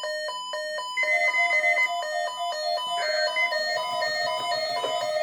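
An electronic chime melody made of pure beeping tones. It pulses evenly at first and changes to a different tune about a second in and again around three seconds in.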